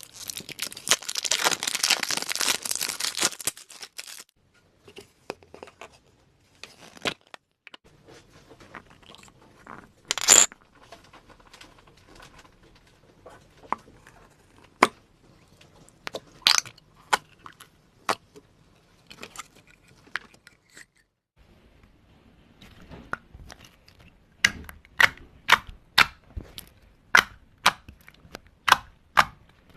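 Slime being handled close up. A dense crackling lasts about four seconds at the start, then scattered sharp clicks follow. Near the end comes a regular run of sharp clicks, about two a second.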